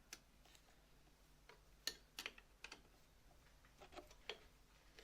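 Faint, irregular light clicks and taps of small items being handled, about a dozen spread unevenly, the sharpest about two seconds in.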